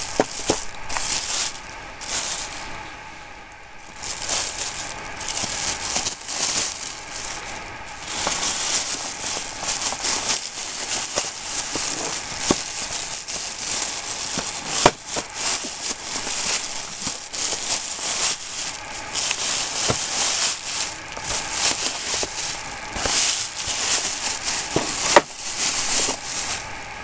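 Thin black plastic bag crinkling and rustling as hands handle it and pull a cardboard box out of it, with a brief quieter spell about three seconds in.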